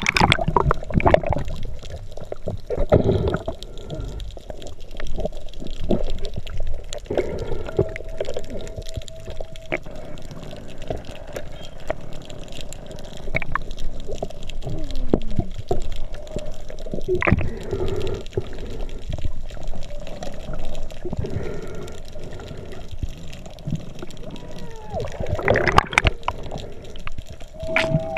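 Underwater sound picked up by a submerged camera: muffled gurgling and bubbling water with scattered knocks and clicks, and a faint steady hum that comes and goes twice.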